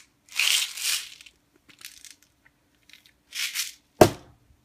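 Crinkly rustling from handling, in several short bursts, then a single sharp knock about four seconds in.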